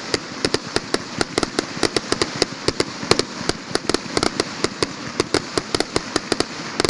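Firecrackers going off in a rapid, irregular string of sharp bangs, several a second, over a steady crackle.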